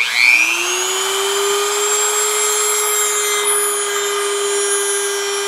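Dremel rotary tool fitted with a sanding point switched on, spinning up to speed in about half a second and then running at a steady high whine.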